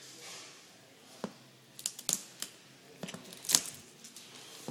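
Small scissors snipping at tight packaging: a string of sharp snips and clicks, the loudest about three and a half seconds in.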